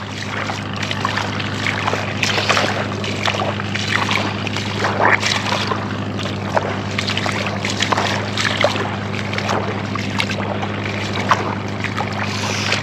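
Footsteps squelching and crunching irregularly on wet tidal sand, over a steady low hum.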